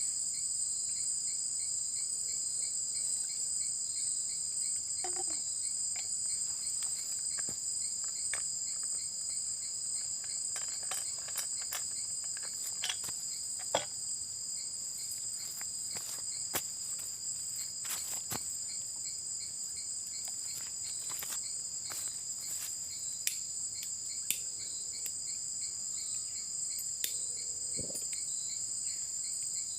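Steady high-pitched insect chorus, an unbroken trilling drone, with scattered faint clicks and taps.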